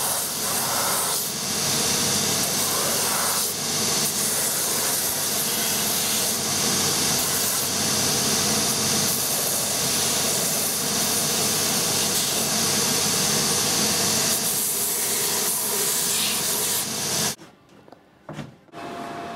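Shoe finishing machine's abrasive wheel running with the edge of a new leather sole pressed against it, giving a steady rushing, grinding noise. It cuts off abruptly about 17 seconds in.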